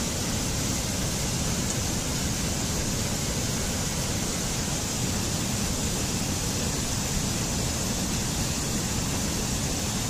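Steady rush of a mountain stream cascading over rocks in small falls, an even, unbroken water noise.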